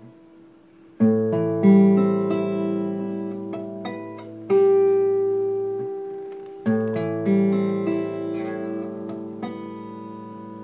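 Acoustic guitar playing slow strummed chords, each left to ring out and fade. The first strum comes about a second in, and the rest follow at intervals of one to three seconds.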